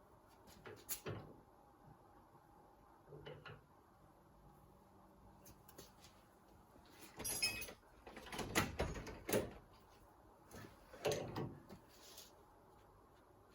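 Intermittent clunks, knocks and rattles of metal tools and workshop gear being handled, with a busier stretch of clattering about halfway through.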